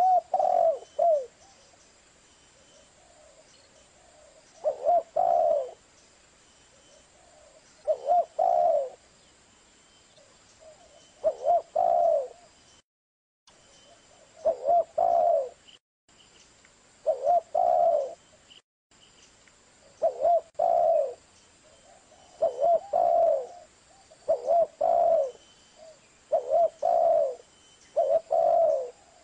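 Spotted dove (Streptopelia chinensis) cooing: a short phrase of a few low notes, repeated about every three seconds and coming quicker, about every two seconds, near the end.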